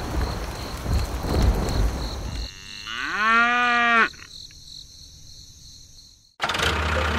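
A cow moos once about halfway through, a call of about a second and a half that rises in pitch and then holds. Before it there is a stretch of rumbling noise, and near the end a steady hum starts abruptly.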